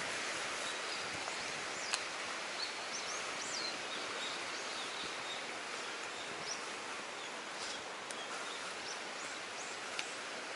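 Fast-flowing river rushing through a rock channel: a steady hiss of water, with faint high chirps scattered through it and a couple of sharp clicks, one about two seconds in and one near the end.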